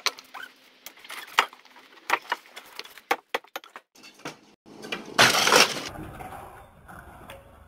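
Wooden framing of a trailer add-on room being torn down: a string of sharp wooden cracks and knocks, then about five seconds in a loud crash as the roof section gives way and comes down, with a rumbling clatter of debris after it.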